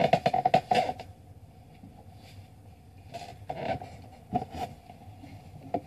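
Handling noises from a tissue box being picked up and moved: a quick run of knocks and rustles in the first second, then a few scattered bumps and scrapes.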